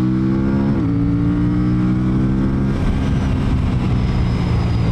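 Aprilia Tuono 457's parallel-twin engine pulling under acceleration, its pitch climbing, with a quick upshift about a second in; the pitch climbs again and then levels off to a steady run near three seconds in.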